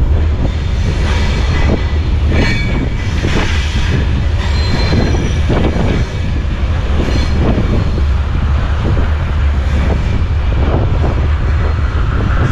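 Iron ore freight train running, heard from aboard an open ore wagon: a heavy steady rumble with repeated metallic clanks and brief wheel squeals, the first about two seconds in.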